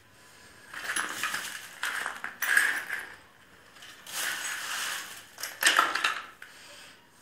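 Handling noise from parts being moved and sorted: four rustling, scraping bursts of about a second each.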